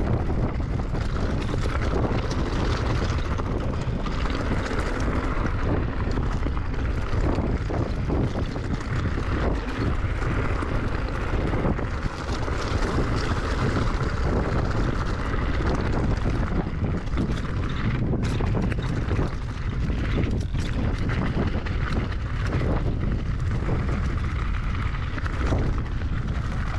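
Wind buffeting the microphone while an electric mountain bike rolls over a loose stony trail, with continual tyre crunch and scattered knocks and rattles from the bike over the rocks.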